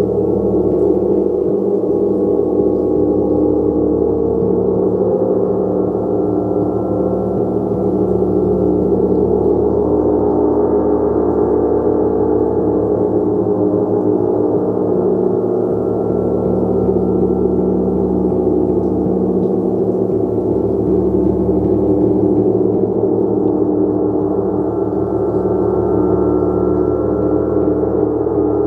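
Gong played continuously, a dense sustained wash of many overlapping tones with no distinct separate strikes, kept at an even loudness throughout.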